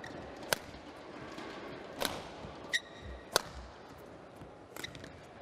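Badminton rally: rackets striking the shuttlecock in four sharp cracks, about one and a half seconds apart, with a short squeak between two of the shots.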